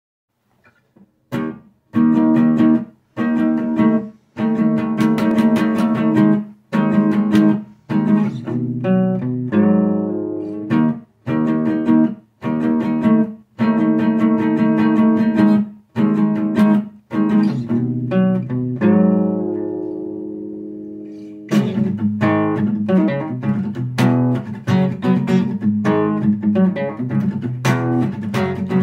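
Acoustic guitar playing short, accented strummed chords with brief stops between them. About two-thirds of the way through, one chord is left to ring out and fade, and then unbroken strumming takes over.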